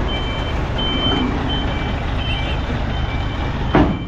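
Truck reversing alarm beeping in uneven pulses of a two-note tone over the low rumble of the Scania V8 tractor unit's diesel engine, as the extendable low-loader trailer is pushed back in. A brief loud burst of noise cuts across near the end.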